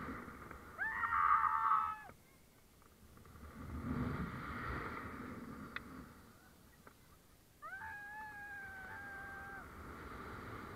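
A person screaming on a Tarzan swing: two long high-pitched screams, a short one about a second in and a longer, held one later on, with wind rushing over the microphone as the swing moves between them.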